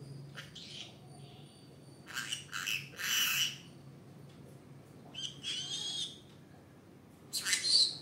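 Green-cheeked conure giving a string of short, high-pitched calls: four bursts, the loudest about three seconds in.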